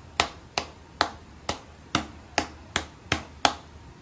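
A hand and a cat's paws tapping at each other on a glass door: a quick run of sharp taps, about two to three a second, stopping shortly before the end.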